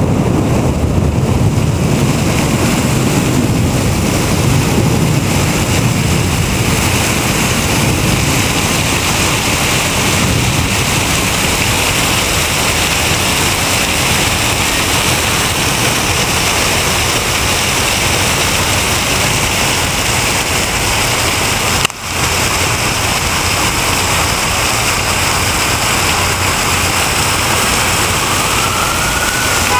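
Heavy rainstorm runoff pouring off a building like a waterfall: a loud, steady rushing and splashing of water. It drops out briefly once about two-thirds of the way through, and a rising tone comes in near the end.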